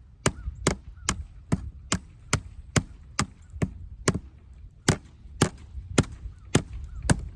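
A hammer driving fence staples into a wooden fence post to hold barbed wire, struck in a steady rhythm of about two blows a second, with a short pause about halfway through.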